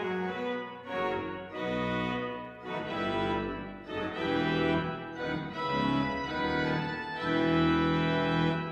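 Church pipe organ playing full sustained chords over a deep bass, the harmony moving on about once a second. The loudest chord is held near the end.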